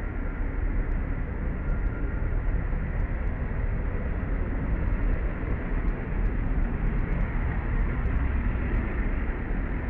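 Steady low rumbling background noise with no clear events in it, heaviest in the bass, with a few faint ticks above it.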